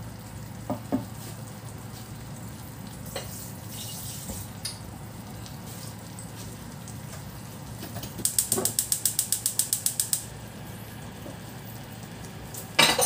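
A frying pan of sauce on the stove under a steady low hum, with a few light knocks. About eight seconds in comes two seconds of rapid, even clicking, about ten clicks a second, and there is a sharp knock near the end.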